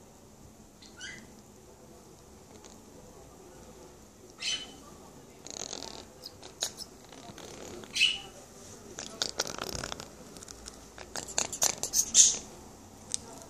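Small parrots, a sun conure and a quaker parakeet, giving a few short soft chirps, then a quick run of clicky chatter in the second half.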